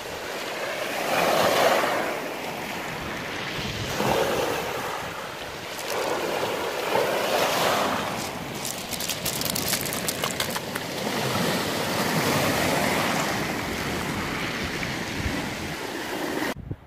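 Waves washing over a shingle beach, the surge swelling and easing every few seconds, with wind noise on the microphone. A patch of short clicks and rattles comes in about eight seconds in.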